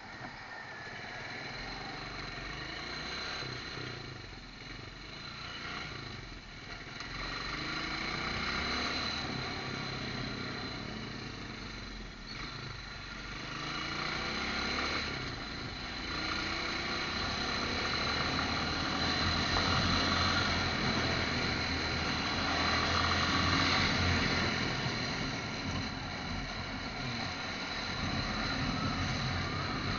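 Motorcycle engine running while riding through traffic, its pitch rising and falling a few times as the bike speeds up and slows, over a steady hum of road and tyre noise.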